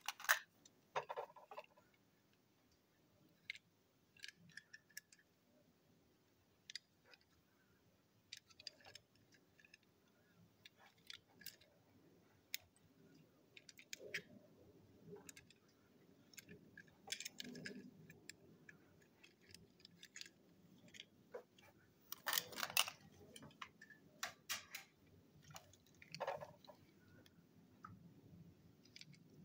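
Faint scattered clicks and taps of small toy cars being handled and turned in the fingers, with a brief louder rustle about two-thirds of the way through.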